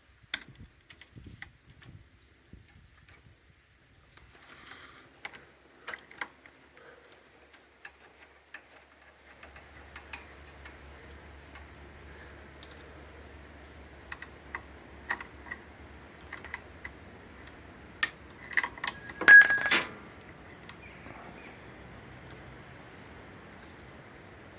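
Scattered small metallic clicks and taps of hand work on a steering-clutch cable adjuster and its fittings, with a loud ringing metallic clatter near the end. A faint low steady hum comes in partway through.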